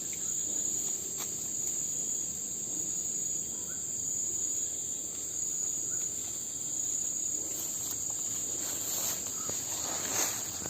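Steady, high-pitched chorus of insects such as crickets or cicadas, with a few faint clicks near the end.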